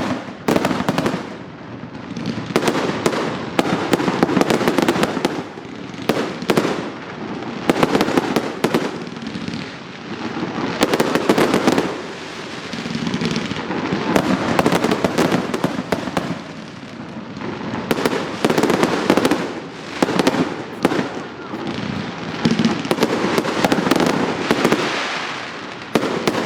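A 168-shot fireworks cake firing continuously: rapid launch thumps and crackling bursts in quick succession, the volleys swelling and easing every couple of seconds.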